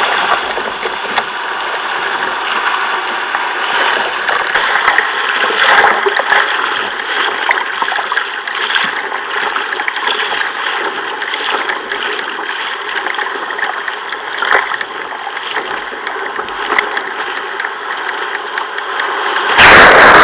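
Surf and white water rushing and splashing around a sit-on-top fishing kayak as it is paddled out through breaking waves. Near the end a wave breaks over the kayak and the rush of water turns much louder.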